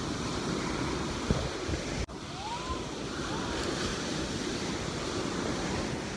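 Surf breaking and washing up a sandy beach, with wind buffeting the microphone. There is a thump about a second in and a brief break in the sound about two seconds in.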